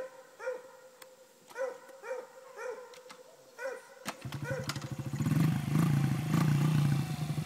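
A dog barks repeatedly, about six times. About four seconds in, the Honda CRF50's small single-cylinder four-stroke engine starts up and runs with a steady putter, then revs up and gets louder.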